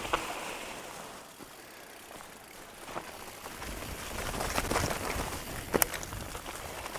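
Mountain bike being ridden on a dirt trail: steady tyre and wind noise with scattered clicks and rattles from the bike, and a low rumble that grows louder over the second half.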